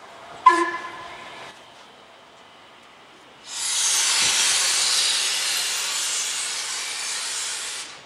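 Steam locomotive sounding a brief whistle toot about half a second in, then a loud hiss of escaping steam for about four seconds that starts and stops abruptly.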